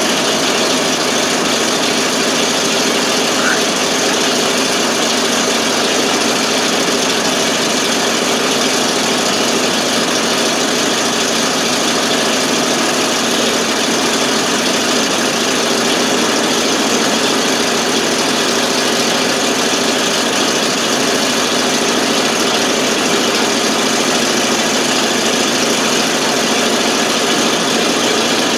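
Carbureted engine of a 1988 FMC 6000 U-Haul truck idling steadily on its own after a hard start, caused by fuel not reaching the carburetor.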